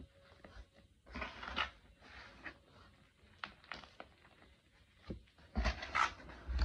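Crushed Ader gym chalk squeezed and crumbled in the hands, making soft crunching in bursts, with a few single crackles between and the loudest crunching near the end.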